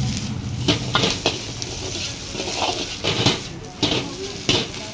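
Steel ladle clanking and scraping against a large wok during stir-frying, with about six sharp clanks at irregular intervals over a steady sizzling hiss of the frying food.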